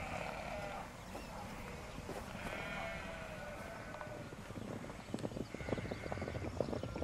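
A horse whinnying, one long call ending about a second in and another from about two to four seconds. From about five seconds, galloping hoofbeats come in as a quick run of knocks on the ground.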